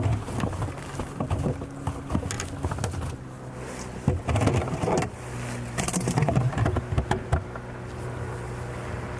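Low steady hum of a boat motor, overlaid for the first seven seconds or so by irregular knocks, clicks and rustles of handling in the boat.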